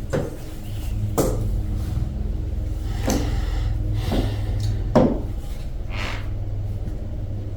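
Light knocks and taps about once a second, the loudest about five seconds in, over a steady low hum.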